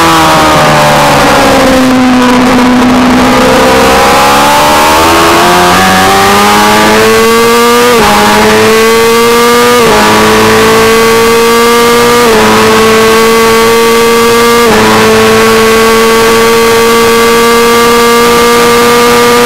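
600cc race bike engine under full throttle, heard onboard with wind rush: the revs climb from low out of a corner, then four quick upshifts about 8, 10, 12 and 15 seconds in, each a short dip in pitch before it climbs again, and the engine is held high in the rev range near the end.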